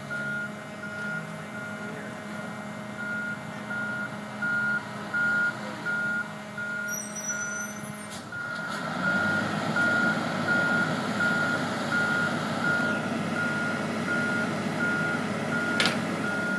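A heavy boatyard machine's reversing alarm beeping steadily at one pitch, with a short break near the middle. Its engine noise swells from about halfway through and keeps running under the beeps.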